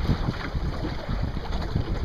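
Wind buffeting the microphone in uneven gusts, over the rush and splash of water along the hull of a small sailboat under way.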